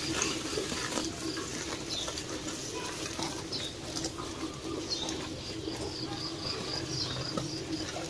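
Small birds chirping, with a quick run of high chirps about five seconds in, over a steady low hum and the rustle of straw as a calf pulls at hay.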